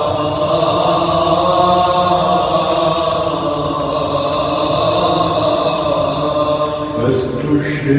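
Coptic liturgical chant: voices hold long, slowly moving melismatic notes, and a new phrase begins about seven seconds in.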